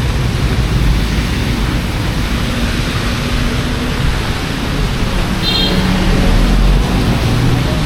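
Heavy typhoon rain, a steady loud hiss, with a low rumble underneath and a brief high chirp about five and a half seconds in.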